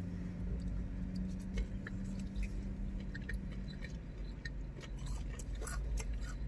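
Chewing and small wet mouth clicks from eating a sauce-dipped chicken tender, over a low steady hum that thins out about halfway through.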